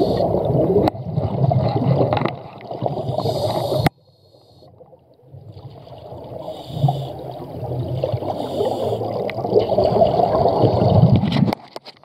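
Scuba diver's regulator breathing heard underwater: exhaled bubbles gurgling, with short hissing inhalations between breaths. The sound cuts off abruptly about four seconds in, builds back up, and stops again just before the end.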